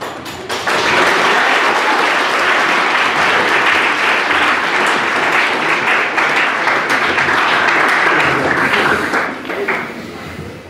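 A room of guests applauding, starting about half a second in and dying away near the end.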